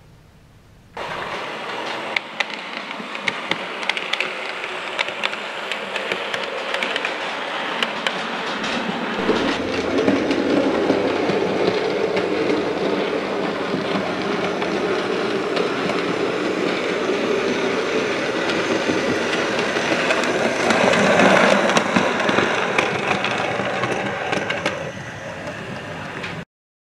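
Model railway train running along the layout's track, with a steady run of wheel clicks over the rail joints. It starts suddenly about a second in, gets louder as the train comes closer, then fades and cuts off near the end.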